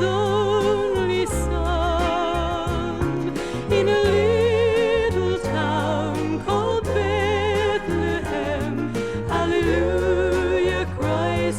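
Gospel music: voices sing long held notes with vibrato over a band with a steady bass line.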